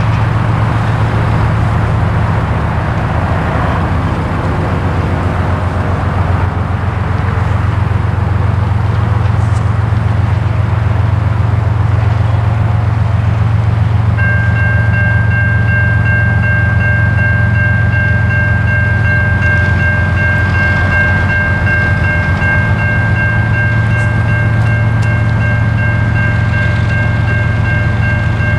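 A steady low rumble of the approaching Norfolk Southern freight train's diesel locomotives runs throughout. About halfway through, a Safetran Type 3 electronic crossing bell starts up: a fast, high, steadily repeating ding. It is the only one of the crossing's two bells that sounds, because the other is dead.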